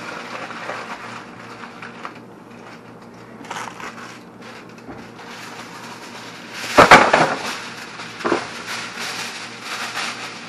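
Aluminium foil crinkling as it is folded and pressed around a fish, then a fresh sheet pulled from the box and torn off, with a loud sharp crackle about seven seconds in and a smaller one a second later.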